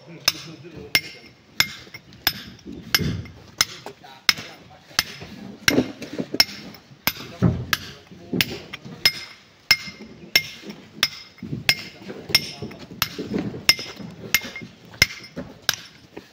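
Steady hand-hammer blows on rock-cutting tools, about one and a half strikes a second, each a sharp metallic clink with a short ring.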